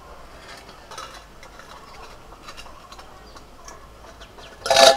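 Faint scattered ticks and crackles, then near the end a stainless-steel lid clangs against an iron kadai as it is lifted off. The clang is loud and rings on briefly with a metallic tone.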